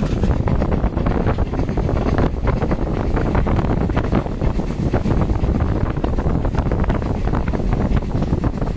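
Heavy wind buffeting on the microphone held out of a moving train's carriage window, over the steady running noise of the train on the track.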